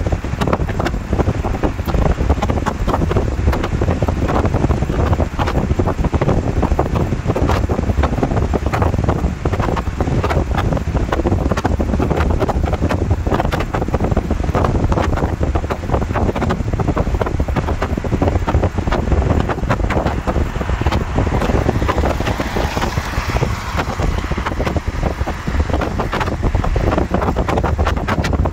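Wind buffeting the microphone of a phone filming from inside a car at highway speed, with steady road and tyre noise underneath; it swells briefly about three-quarters of the way through.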